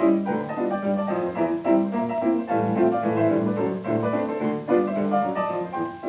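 Instrumental music with a piano playing quick, short notes.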